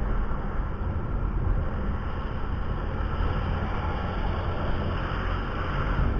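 Steady low rumble of a vehicle travelling on the road, with wind buffeting the microphone.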